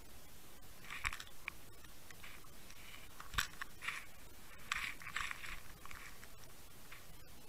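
Irregular crunching scrapes and clicks, with one sharp knock about halfway through, over a steady hiss, picked up underwater as the camera rig shifts on the seabed.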